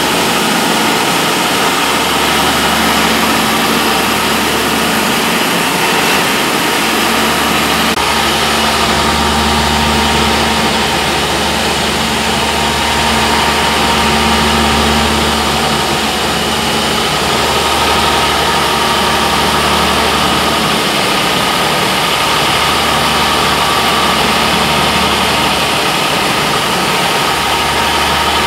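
Rendering plant machinery running: a screw press and a decanter centrifuge spinning at high speed. The sound is a loud, steady mechanical drone with a constant whine and a low hum.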